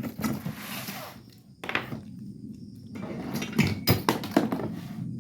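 Ceiling fan parts being handled: a rustle in the first second, then a knock, and a few sharp knocks and clinks of hard pieces being picked up and set down.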